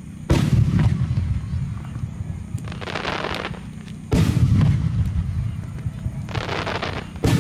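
Aerial firework shells bursting overhead: three deep booms about four seconds apart, each with a rumbling tail, and a short spell of crackling between them.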